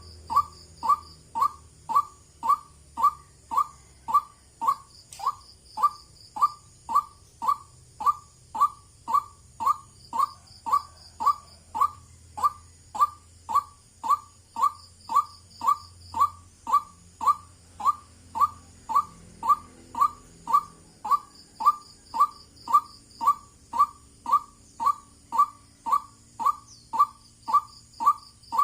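White-breasted waterhen calling, one short monotonous note repeated at an even pace of about three notes every two seconds. A faint high trill from another bird comes in every few seconds.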